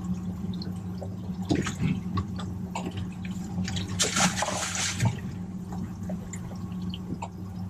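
Water splashing and trickling at the side of a boat, loudest in a burst about four seconds in, over a steady low hum from onboard machinery.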